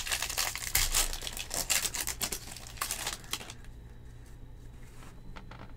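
Foil wrapper of a 2020 Bowman Jumbo baseball card pack being torn open and crinkled. It dies down after about three and a half seconds, leaving a few faint taps.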